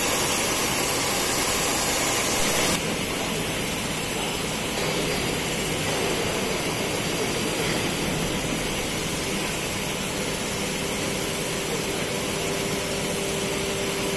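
Centerless grinding machinery for steel round bar running steadily, with a bright hiss that drops abruptly about three seconds in to a quieter, steady hum carrying a faint held tone in the last few seconds.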